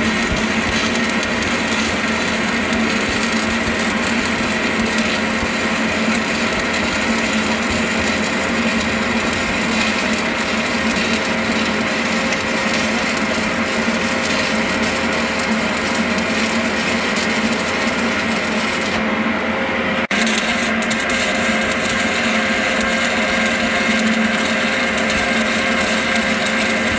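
Stick (arc) welding on a steel pipe: the electrode arc burns steadily with a continuous crackling hiss. The hiss breaks off briefly about two-thirds of the way through, with a click.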